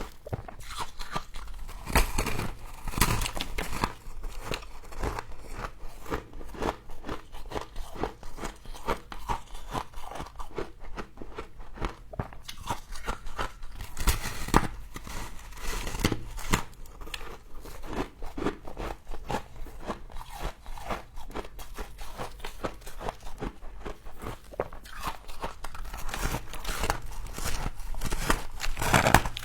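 Frost being bitten and chewed close to the microphone: a continuous run of crisp, crackly crunches, with louder bites about two and three seconds in, around the middle, and a busier run near the end.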